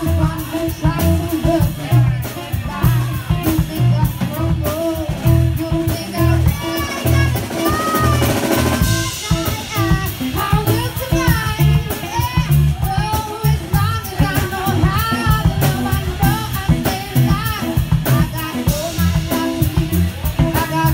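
Live band playing: a woman singing lead over a drum kit keeping a steady beat. A swell builds up and stops sharply about nine seconds in.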